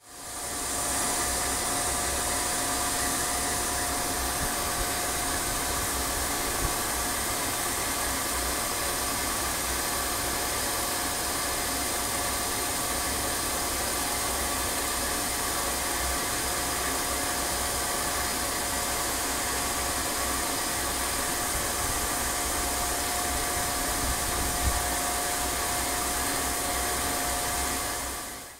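Belt grinder running steadily while an inlaid knife handle is ground against the belt over its contact wheel: an even rush of noise with a steady whine running through it.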